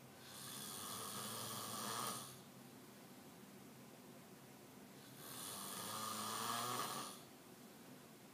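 Snoring: two long snores about three seconds apart. Each lasts about two seconds and grows louder before it cuts off.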